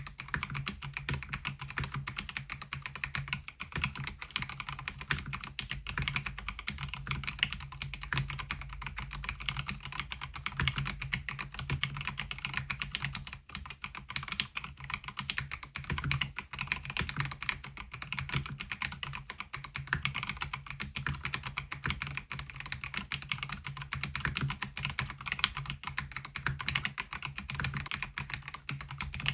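Continuous fast typing on a MelGeek Mojo68 mechanical keyboard with MOA-profile PBT-style keycaps: a dense, even stream of key clicks with no pauses.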